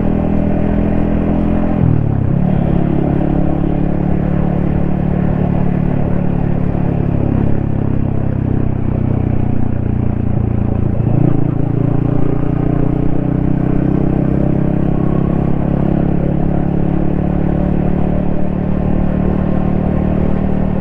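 Yamaha XSR155's 155 cc single-cylinder engine and exhaust running steadily while riding. The engine note shifts in pitch about two seconds in and again about eleven seconds in.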